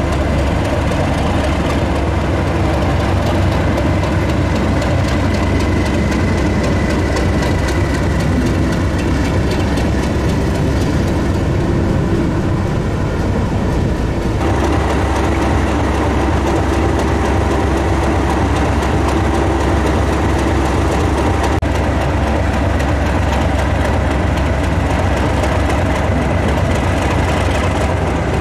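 Railway train running with a heavy, steady engine sound. The sound changes abruptly about halfway through, as at a cut.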